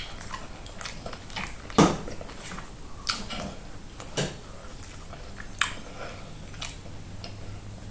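A person chewing food close to the microphone, with a few sharp mouth or utensil clicks, the loudest about two seconds in.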